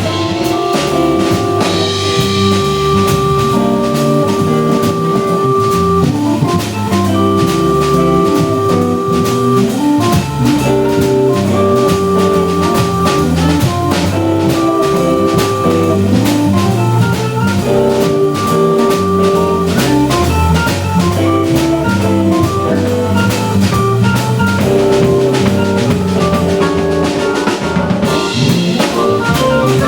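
Live jazz band playing: busy drum-kit playing with bass drum and rimshots under long held organ chords that repeat in phrases every few seconds.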